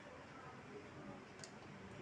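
Near silence: faint room tone, with a single light click about one and a half seconds in.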